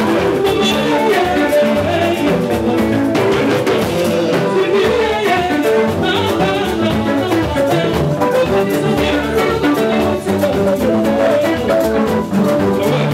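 Congolese dance-band music: electric guitars over a steady drum-kit beat.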